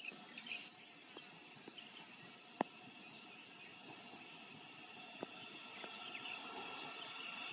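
Insects chirping in the surrounding grass and bushes: high-pitched calls in short bursts of rapid pulses, repeating irregularly, with a couple of faint sharp clicks.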